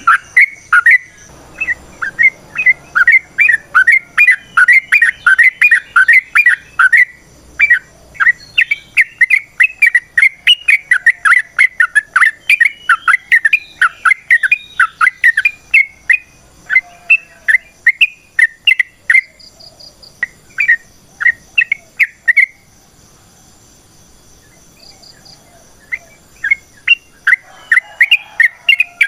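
Yellow-vented bulbul (trucukan) singing a long, fast run of short chirping notes, about three a second. It breaks off for about four seconds a little over twenty seconds in, then starts again.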